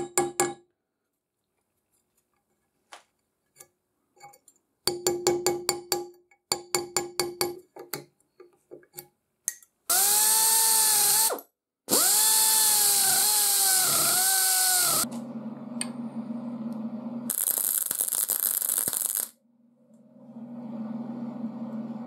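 Bursts of rapid metallic clicking at about six a second. Then an electric rotary grinder with a carbide burr cuts into a steel bolt hole in two loud bursts, its pitch dipping and rising under load. After that a welder hums steadily, with a burst of wire-feed welding arc hiss.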